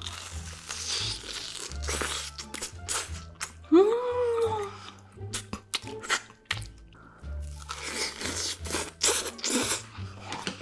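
Close-up crunching and chewing of a fried cheese ball, with many short crackling bites, over background music with a looping bass line. About four seconds in, a short hum rises and falls in pitch.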